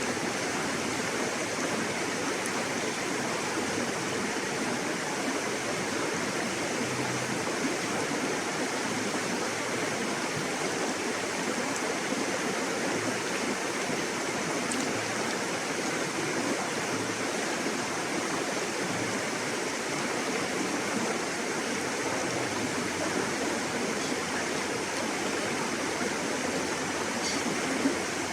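River water flowing, a steady, even rush of water with no let-up. There is one brief click near the end.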